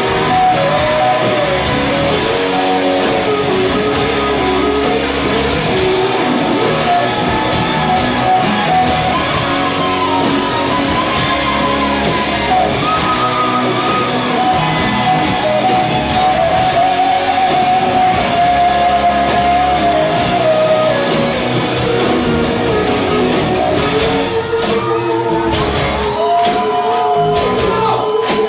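Rock band playing, with a lead vocal and electric guitars over bass and drums.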